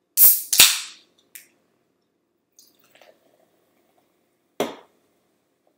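Aluminium sparkling-water can cracked open: two sharp snaps of the pull tab, the second followed by a hiss of escaping carbonation. Faint pouring into a glass follows, then a single sharp knock near the end.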